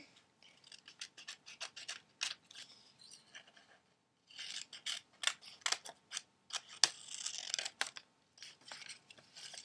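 Scissors cutting out a paper outline: a run of irregular snips with paper rustling between them, pausing briefly about four seconds in.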